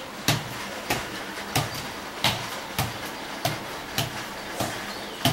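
Soccer ball juggled with bare feet: a steady run of about nine taps, one roughly every two-thirds of a second, each with a short room echo.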